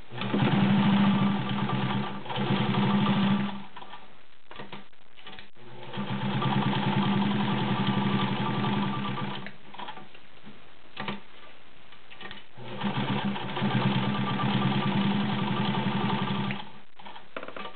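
White Model 764 sewing machine running and stitching through thick cotton canvas in three runs of a few seconds each, its motor humming with a fast, even needle beat. A few sharp clicks fall in the pauses between runs.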